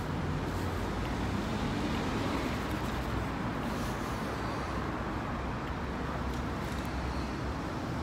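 Steady rumble of road traffic, with no distinct single event.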